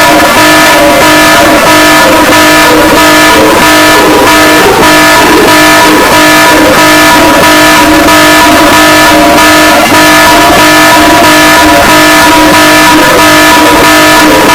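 Emergency alert alarm: a very loud, distorted chord of steady tones with an even pulsing beat. Its pitches change right at the start, then hold.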